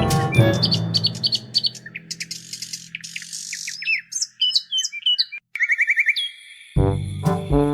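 Birds chirping in short, quick whistled notes that slide up and down in pitch. Background music fades under them at the start and starts again near the end.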